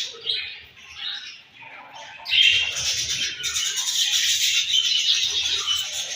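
A group of budgerigars chirping: scattered short chirps at first, then from a little after two seconds many birds chattering at once, dense and loud.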